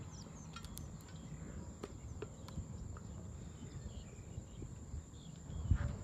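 Steady high-pitched insect buzz, crickets, over a low rumble, with scattered faint clicks. Near the end come a few heavier low thuds of footsteps on the dirt track.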